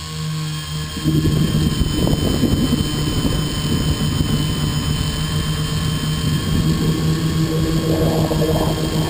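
Multirotor tricopter's electric motors and propellers droning steadily in flight, heard from the GoPro carried on the airframe. About a second in the sound gets louder as a rough rumble joins the steady hum.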